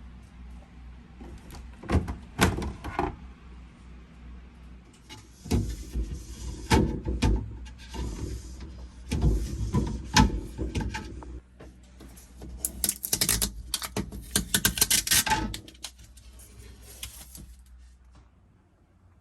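Knocks, clatter and rattling of things being handled, in four bursts with short pauses between, over a low steady hum.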